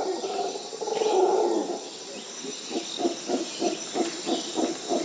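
Howler monkey calling: a deep, drawn-out roar for the first couple of seconds, breaking into a run of short grunts at about three a second. A steady high insect drone runs underneath.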